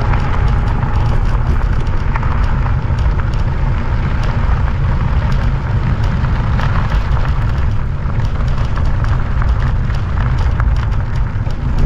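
Wind buffeting the microphone while riding an e-bike: a heavy, steady low rumble with a hiss of air and road noise over it.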